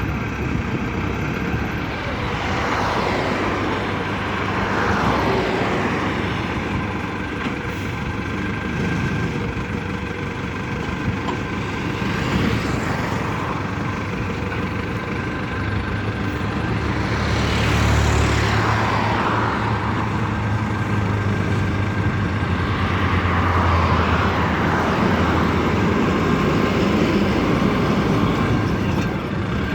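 Engines running steadily, with vehicles passing by several times; each pass rises and falls in pitch. No pile-driving hammer strikes.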